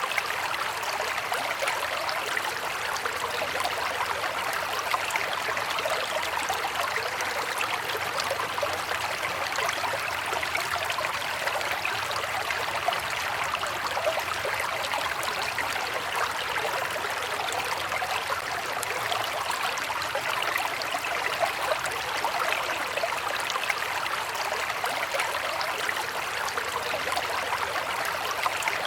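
River water flowing steadily, with a continuous rushing and fine bubbling detail and no pauses or changes.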